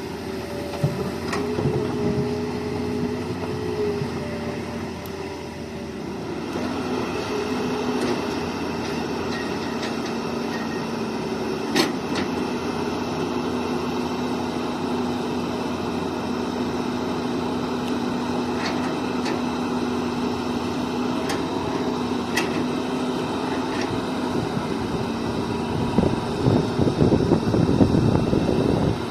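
Hitachi hydraulic excavator's diesel engine running steadily at work, with a few sharp clanks and a louder, rougher stretch near the end.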